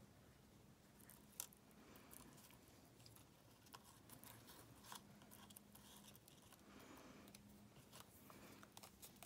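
Near silence, with a few faint taps and rustles of paper pieces being pressed onto a card by hand.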